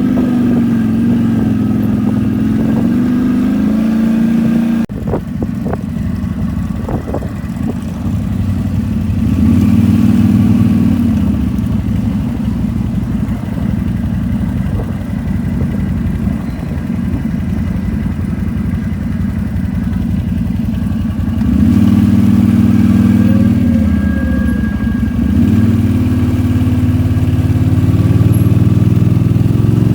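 ATV engine running while being ridden, its pitch rising and falling as the throttle is opened and eased, with the loudest surges at about ten seconds in and again at about twenty-two seconds in. A few sharp knocks come about five to seven seconds in.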